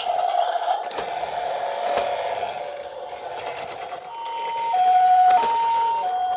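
Toy ambulance minicar's electronic siren from its small speaker: a rough steady tone at first, then from about four seconds in a clear two-tone high-low alternation like a Japanese ambulance's pee-po. A couple of light clicks come in the first two seconds.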